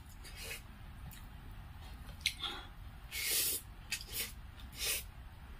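Close-miked eating with the fingers: rice and poi saag greens being worked by hand on the plate, then mouthfuls chewed, heard as several short smacks with one longer one a little after three seconds in.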